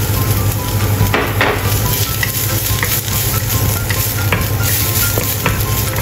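Minced ginger sizzling in hot oil in a wok, stirred with a wooden spatula that scrapes and taps against the pan a few times.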